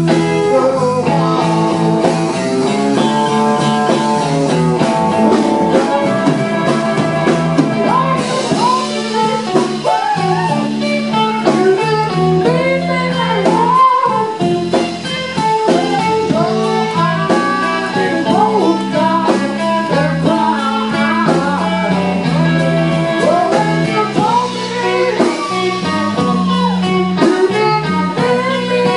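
Live band playing: electric guitars with bending lead lines over bass guitar and drum kit.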